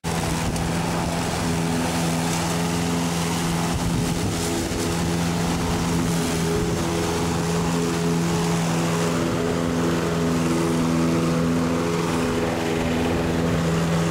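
Petrol push lawn mower engine running steadily at a constant speed.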